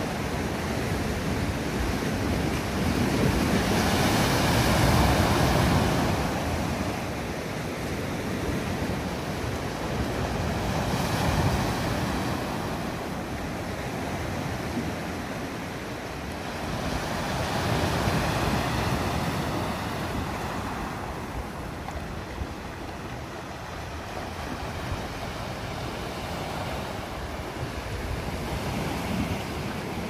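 Sea waves breaking and washing up a pebble shore, the surf swelling and ebbing every several seconds.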